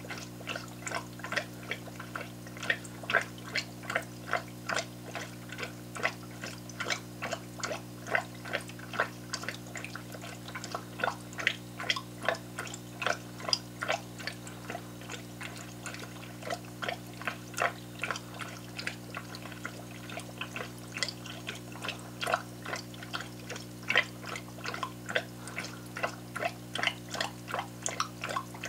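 Air bubbler lift tube of an aquarium hang-on breeder box gurgling, with irregular bubble pops about two or three a second over a steady low hum. This is the noise of the air-driven flow that sucks clownfish fry from the main tank into the breeder box.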